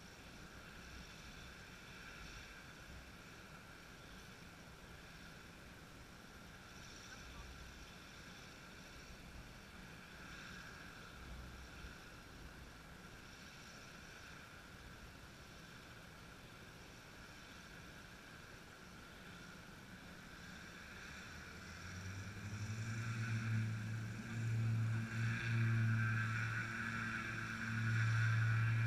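A deep engine drone with a steady, unchanging pitch fades in over faint steady background noise and grows loud over the last seven seconds or so.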